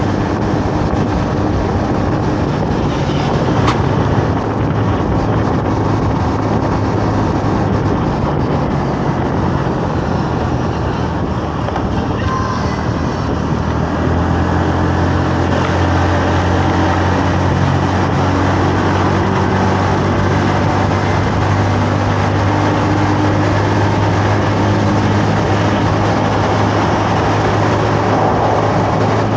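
Honda Navi 110's small single-cylinder four-stroke engine running steadily under way, over rushing wind noise. The low engine hum grows stronger about halfway through.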